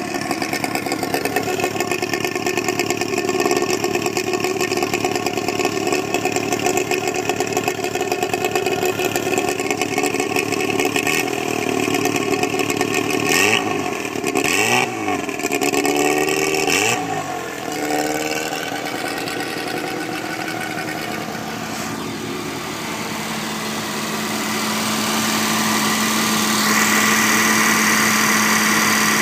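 Reliant Kitten's 848 cc four-cylinder engine running on its first start in years, revved up and down a few times about halfway through, then settling into a steady idle that grows louder near the end.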